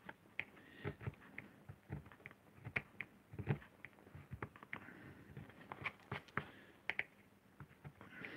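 Hand lino-cutting gouge carving into a sheet of lino: faint, irregular short scrapes and clicks as the blade is pushed through the surface, stroke after stroke.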